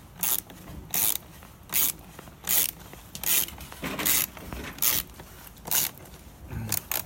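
Socket ratchet with a T25 Torx bit driving a screw home, giving a short rasping run of pawl clicks on each backswing, about one every 0.8 s, nine or ten strokes in all.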